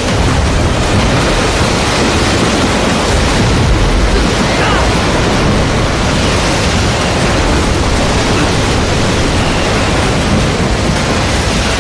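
A loud, steady storm at sea: wind and heavy waves.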